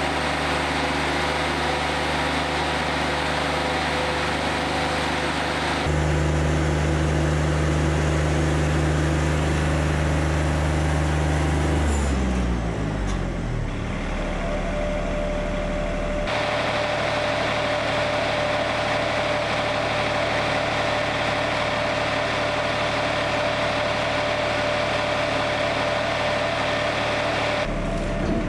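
Wood-Mizer LT40 Wide sawmill's diesel engine running steadily. About twelve seconds in, its pitch falls as it throttles down, and it runs on at a lower, even note. The sound jumps abruptly at about six and sixteen seconds.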